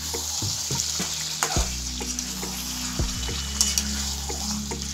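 Chicken curry sizzling in a metal frying pan as a steel spatula stirs it, clicking and scraping against the pan several times, over a steady low hum.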